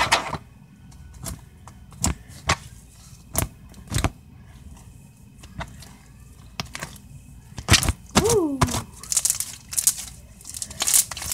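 Homemade glue slime being kneaded and stretched by hand as glitter is worked in: sticky pops and clicks about once a second, turning into a dense run of crackling near the end.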